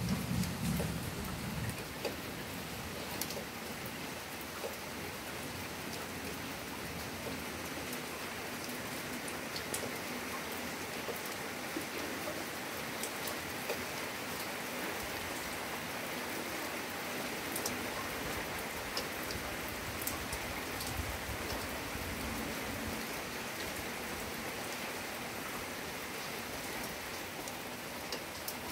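Steady rain falling, with scattered sharp drops ticking close by and a brief low rumble at the very start.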